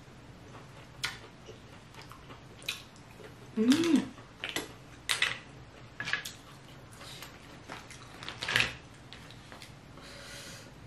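Close-miked mouth sounds of eating lobster and snow crab meat: wet lip smacks, sucking and chewing clicks, one after another at irregular intervals. A short hum, rising then falling in pitch, comes about four seconds in.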